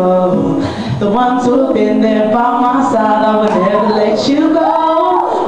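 Girls singing into handheld microphones, amplified through the hall's PA speakers, a melody with held notes and arching slides about three and four seconds in.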